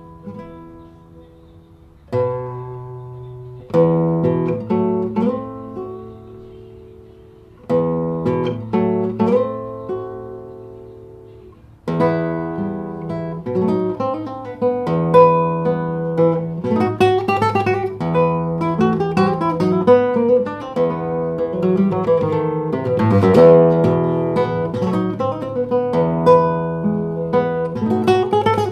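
Solo acoustic guitar music: a few chords struck and left to ring for several seconds at first, then about twelve seconds in a louder, busier passage of quickly picked and strummed notes.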